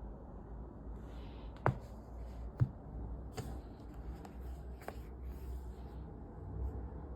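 Paperback books being handled: pages and covers rustling, with a few light taps, the loudest about two and a half seconds in, over a steady low hum.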